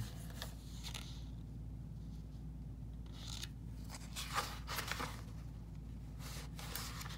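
Faint rustling and scraping of paper being handled, a few brief rustles from about three seconds in, over a steady low hum.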